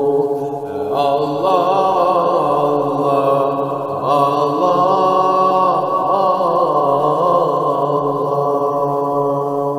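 A voice chanting an ilahi, a devotional Islamic hymn, in long winding phrases over a steady held drone. The phrases begin about a second in and again about four seconds in.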